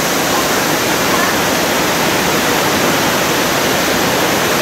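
Rainy-season waterfall in full flow, a loud, steady rush of falling water.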